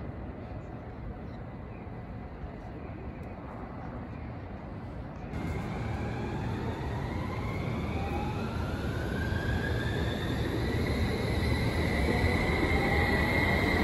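Electric train running: a low rumble at first, then from about five seconds in a whine that rises in pitch and grows steadily louder, typical of the traction motors as the train picks up speed.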